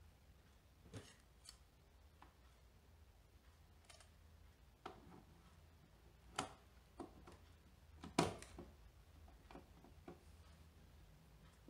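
Faint plastic clicks and knocks as a roll of thermal paper is fitted into a Biocare ECG-300G electrocardiograph's printer and its hinged plastic paper cover is closed. There are about ten scattered clicks, the loudest about eight seconds in.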